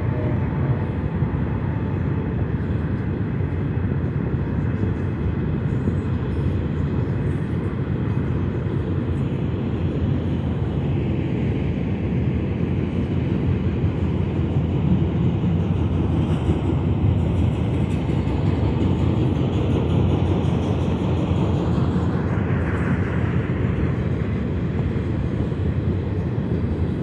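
A long double-stack container freight train running past at a steady pace: a steady low rumble of wagons and wheels on the rails.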